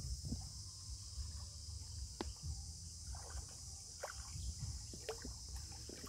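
A macaque paddling and splashing as it swims through river water, set against a steady high drone of insects.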